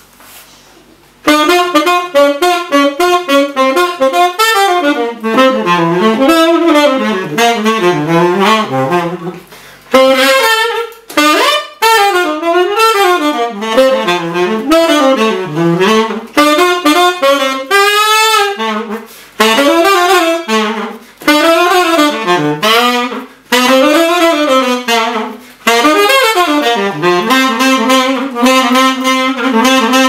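Tenor saxophone played unaccompanied, starting about a second in: fast jazz runs sweeping up and down, broken by short pauses for breath. It ends on a long held low note.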